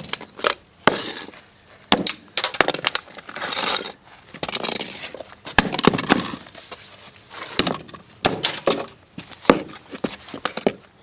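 Toy car being smashed and crushed: repeated sharp hits with stretches of crunching and cracking as it breaks apart.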